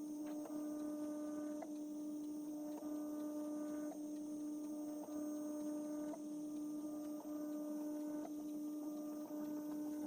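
LABISTS X1 Mini 3D printer running, its stepper motors giving a steady hum. About once a second there is a faint tick, and the higher tones change as each move changes.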